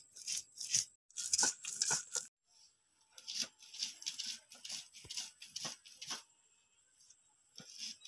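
Soaked red lentils being crushed and ground on a stone slab with a hand-held grinding stone (shil-nora): a run of short grinding strokes, one or two a second, with two brief pauses.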